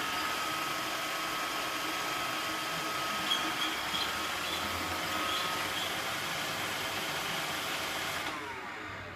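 iRobot Roomba robot vacuum running with a steady whir from its vacuum motor and brushes, a faint steady whine over it and a few light knocks. Near the end its motors wind down with a falling whine.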